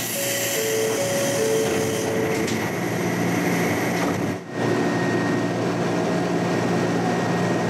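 Ryutetsu Nagareyama Line train heard from the driver's cab, a steady hum and drone as it stands at the platform and then begins to pull away about halfway through. A few short steady tones sound in the first couple of seconds.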